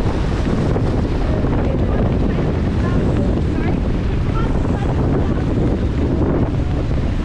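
Wind buffeting the microphone and water rushing along the hull of a Sonar keelboat sailing at speed, a steady heavy rumble.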